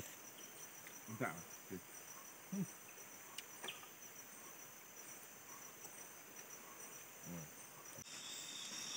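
Steady, high-pitched chorus of insects from the surrounding rainforest, which grows louder near the end. A few faint, short bits of voice come through now and then.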